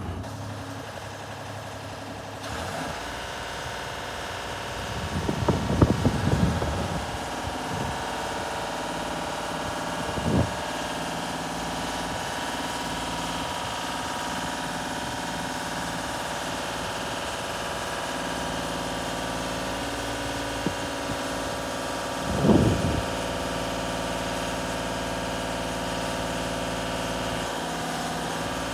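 Deutz diesel engine of a Genie S-60 boom lift running steadily as the boom is raised, its level stepping up slightly about two and a half seconds in. A few brief louder noises break over it, around six, ten and twenty-two seconds in.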